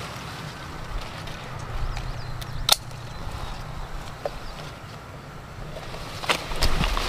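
Pruning shears snipping a pepper stem: one sharp click a little under three seconds in, with fainter clicks later, over a steady low hum.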